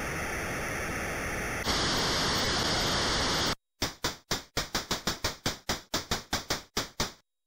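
Synthesized electronic noise sound effects in a retro-computer style: a steady hiss that jumps louder and brighter partway through and then cuts off suddenly, followed by a rapid run of about sixteen short noise blips, around five a second, each fading fast.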